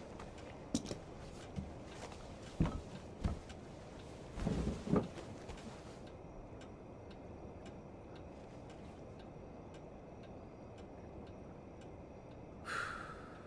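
A clock ticking faintly and steadily in a quiet room, with a few sharp clicks and knocks and a short rustling burst in the first five seconds. Near the end, a brief bright sound slides down and fades.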